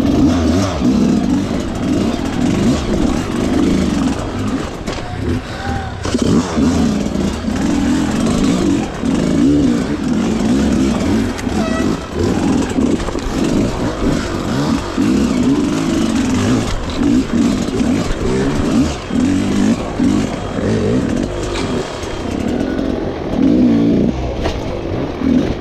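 Dirt bike engine revving hard, the throttle opening and closing again and again so the pitch keeps rising and falling.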